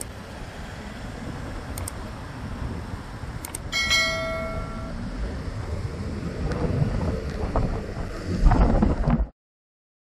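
Steady outdoor background rumble with a single short bell-like ring about four seconds in that fades over about a second. The rumble grows louder just before the sound cuts off abruptly.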